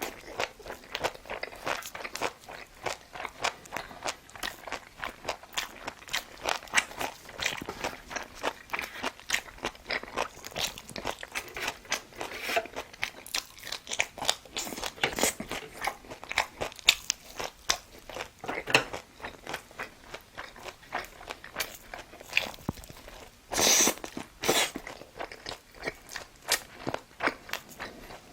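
A person chewing and crunching food: a dense, irregular run of small crunching clicks, with two louder, noisier bursts near the end.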